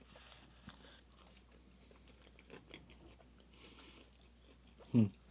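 A person chewing a mouthful of everything-bagel breakfast sandwich, with quiet small clicks and crunches from the mouth. About five seconds in comes a short low vocal sound from the eater, the loudest moment.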